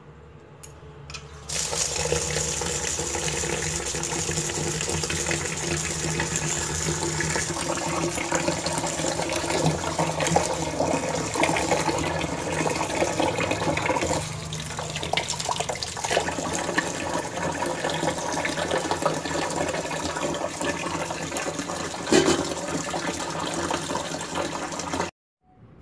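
Tap water running into a metal bowl of split black gram while a hand stirs and rubs the lentils to wash them. The flow starts about a second and a half in and cuts off suddenly near the end.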